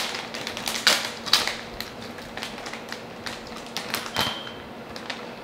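Plastic bag of shredded mozzarella crinkling and clicking as it is handled: a quick irregular run of sharp clicks and crackles that thins out after the first couple of seconds.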